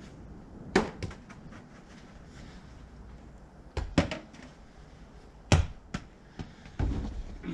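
Small toy balls thrown by hand, thudding as they hit and bounce: a sharp impact about a second in, a pair near the middle, another a little later and a softer one near the end, several followed by lighter bounces.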